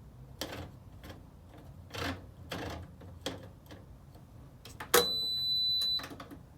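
Hotpoint washing machine's control panel being set: several separate clicks, then one steady high beep lasting about a second, about five seconds in.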